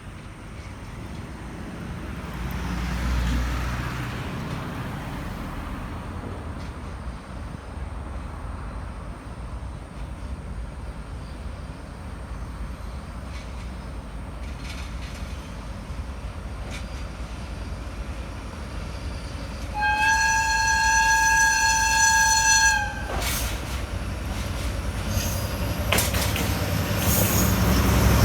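Diesel freight train running: a low engine-and-wheel rumble swells, eases, then builds again near the end. About two-thirds of the way through, the locomotive sounds one long horn blast of about three seconds.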